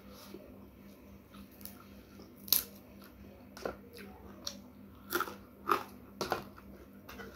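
Close-miked chewing of food by mouth, with a string of about six sharp crunches, the loudest about a third of the way in.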